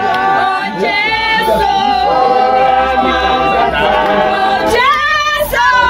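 A group of voices singing without instruments, holding long notes with some sliding up and down.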